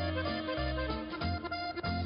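Background music: a lively tune of held melody notes over a bass line that changes note about every half second.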